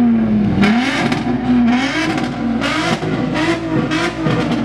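Volkswagen Golf 4 R32's 3.2-litre VR6 engine revved in about five short blips over a steady idle, each blip a brief loud surge with a slight rise in pitch.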